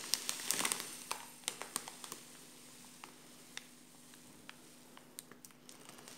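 Faint rustling and light ticks as fine bulgur is scooped from its plastic package into a drinking glass, busier in the first second, then only scattered ticks.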